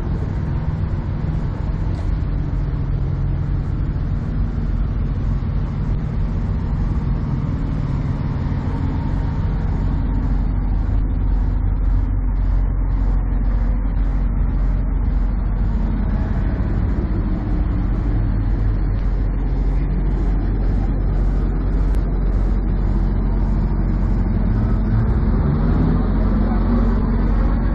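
Peterbilt semi truck's diesel engine running, a steady low rumble that gets stronger from about ten seconds in.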